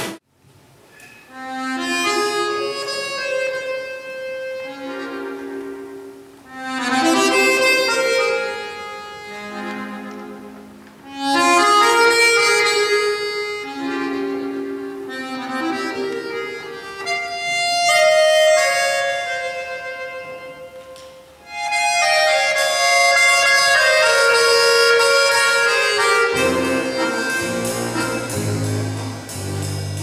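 Live folk-style band music led by reed instruments, accordion and harmonica, playing a melody in separate phrases a few seconds long, starting about a second in. Low bass notes join near the end.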